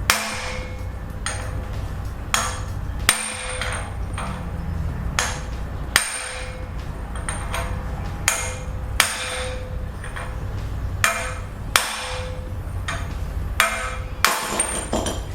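A hammer repeatedly striking a steel socket held against a front wheel bearing, metal on metal, about one blow a second with a short ring after each. The blows are driving the old, noisy bearing out of the steering knuckle, and it is starting to come out.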